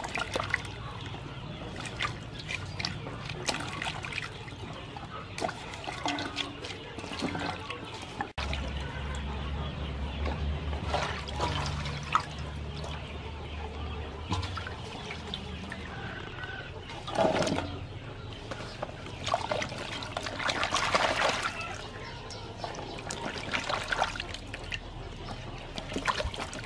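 Hands swishing and rubbing vegetables in water in a large aluminium basin: steady splashing and trickling, with louder splashes a little past halfway and again about three-quarters of the way through.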